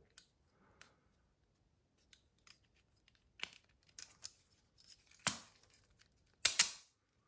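Stainless-steel Leatherman Free P4 multi-tool clicking and clacking as its handles are flipped open and shut one-handed and its magnetic latch snaps together. Scattered light clicks, a sharper clack about five seconds in, and a loud double clack near the end.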